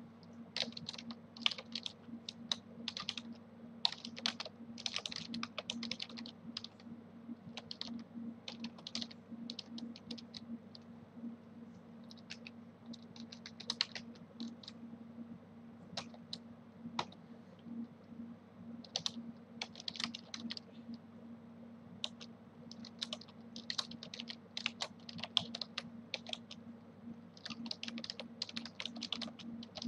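Typing on a computer keyboard: quick runs of key clicks broken by short pauses, over a low steady hum.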